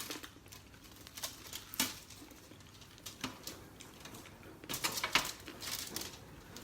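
Eating sounds at a meal of pork leg: scattered small clicks and smacks, coming thicker near the end.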